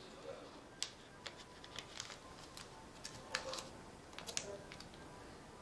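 Sheet of origami paper crackling and rustling in irregular small clicks as fingers fold and press creases into it, the sharpest crackles a little past the middle.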